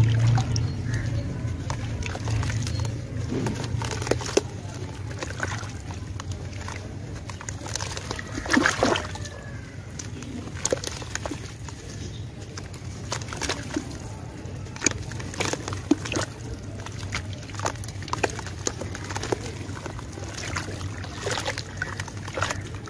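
Hands sloshing and squelching through thin red mud slurry in a plastic tub, mashing a soft lump of red dirt, with irregular wet splats and clicks; the loudest splashing comes about nine seconds in.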